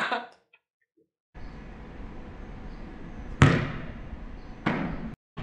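A basketball slammed hard onto a concrete court, one sharp bang about three and a half seconds in, followed a little over a second later by a softer second hit as the ball comes back down. Faint outdoor hiss fills the rest, after about a second of dead silence at the start.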